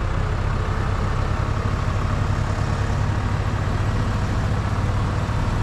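Chevrolet Avalanche's V8 running steadily under throttle as its rear wheels spin in mud, the truck stuck and trying to drive out while a tow strap pulls it.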